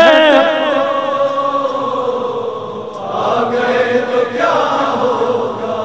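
A chorus of voices sings long, held notes of a devotional manqabat refrain, wavering at first. It fades briefly about halfway through, then swells again.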